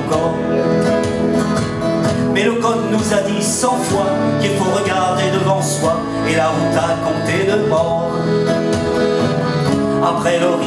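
Live acoustic band music: accordion, plucked guitar, upright double bass and keyboard playing together at a steady, full level.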